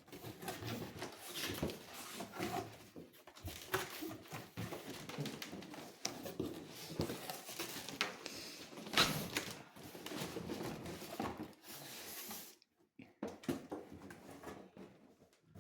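Cardboard box and packing being handled while unpacking a subwoofer: a long run of irregular scraping, rustling and light knocks that dies down near the end.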